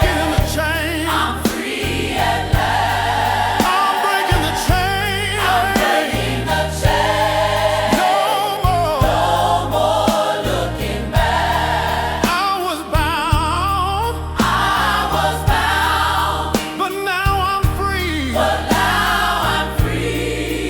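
Gospel music with a choir singing wordless, melismatic lines with heavy vibrato over bass and a steady drum beat.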